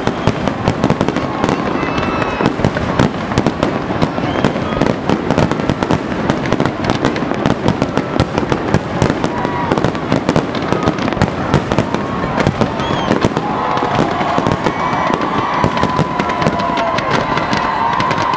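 Fireworks display in a dense, continuous barrage: many shells bursting and crackling in rapid succession, with no break.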